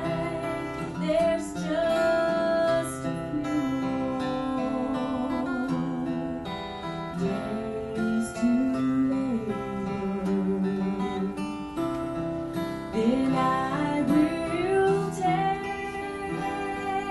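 A woman singing a slow song to strummed acoustic guitar, her held notes wavering with vibrato.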